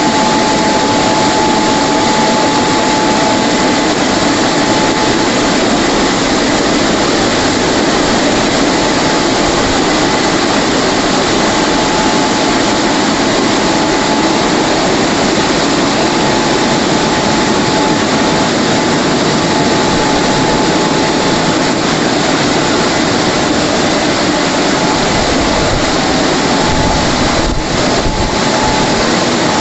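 WashTec SoftCare 2 Pro car wash dryer blowers running at the drying stage: a loud, steady rush of air with a steady whine, as the top dryer nozzle passes over the car. The sound dips briefly near the end.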